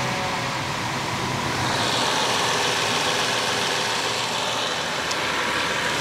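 BMW 760Li's 6.0-litre V12 idling steadily just after start-up, without the high-pitched squeal: with the original BMW crankcase breather valves back in, the squeal is gone, which points to the aftermarket breather valves as its cause.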